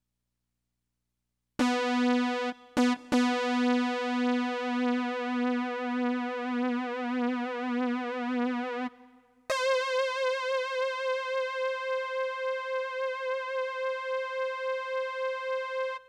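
Roland SC-55 sound module holding a synthesized note with a pulsing vibrato from the MIDI modulation control. The note starts about a second and a half in and is struck again twice in quick succession. It stops a little past halfway, and after a short gap a note an octave higher is held with the same wavering vibrato.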